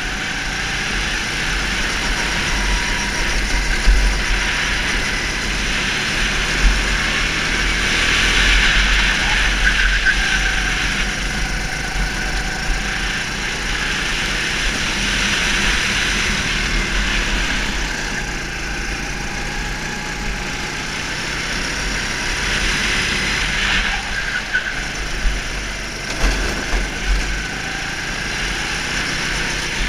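Go-kart engine running under the driver, swelling and easing every few seconds as the kart accelerates and lifts through the corners, with a low rumble underneath.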